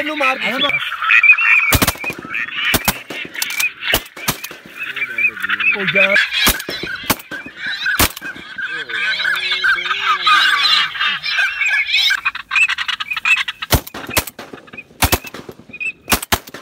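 Dense, continuous waterfowl calling: many overlapping honks and quacks, with short sharp clicks scattered through it.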